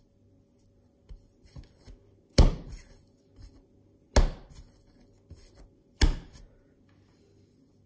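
Bread dough slapped down hard onto a floured worktop three times, a little under two seconds apart, with softer handling sounds of the dough being folded over between slaps. This is slap-and-fold kneading, done to give the dough its elasticity.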